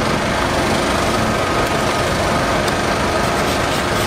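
Steady, loud mechanical drone with a faint hum in it, running without change, with a few faint clicks in the second half.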